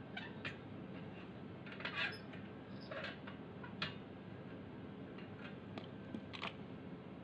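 Light metal clinks and taps at irregular intervals, about eight in all, as steel parts are handled with pliers against a welded steel car-rim grill.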